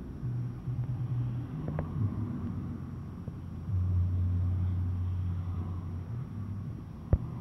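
Low, steady rumble of airliner engines, with humming bands that swell and fade. A single sharp click near the end.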